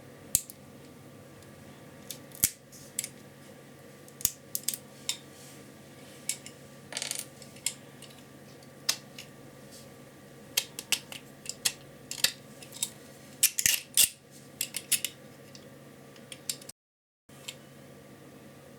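Irregular sharp snaps and clicks of printed plastic support material being cut and broken off a 3D-printed part, with a short scraping stretch about seven seconds in and a quick flurry of snaps around fourteen seconds.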